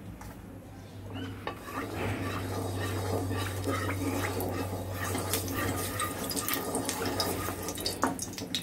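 A little vegetable oil heating in a kadai with a steady sizzling hiss, while a wooden spatula spreads it around the pan with light scrapes and clicks.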